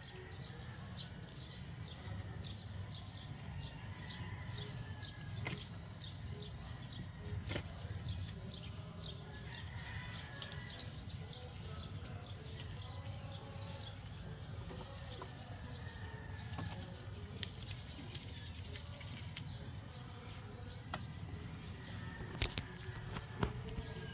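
A bird calling in short, high chirps repeated about two a second, fading out about halfway through, over a steady low background hum with a few light clicks.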